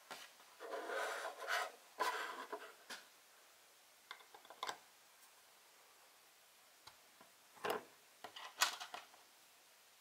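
Small plastic toy railway crossing parts being handled by hand: rubbing and scraping for the first few seconds, then a series of light plastic clicks and taps as a striped barrier arm is fitted onto the crossing.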